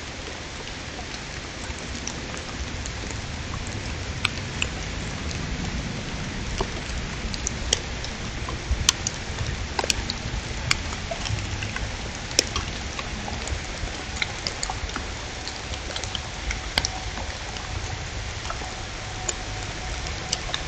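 Light rain: scattered drops ticking irregularly over a steady hiss.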